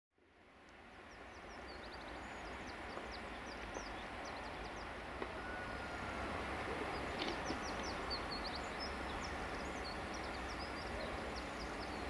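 Outdoor ambience fading in: a steady rushing background noise with small birds chirping many times, high and short.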